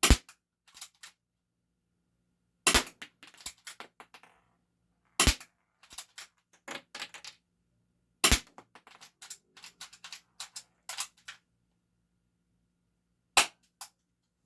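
A Game Face M311 full-metal spring-powered airsoft pistol, a 1911 replica, firing five sharp shots a few seconds apart. Quieter clicks and rattles come between the shots as the stiff pistol is cocked for the next one.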